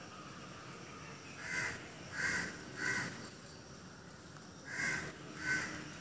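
A crow cawing: three caws in quick succession starting about a second and a half in, then two more near the end.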